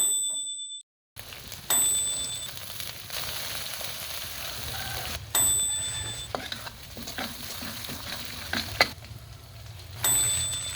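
Food frying and sizzling in a pan while being stirred, with four short, bright metallic dings spread through it and a few sharp clicks near the end.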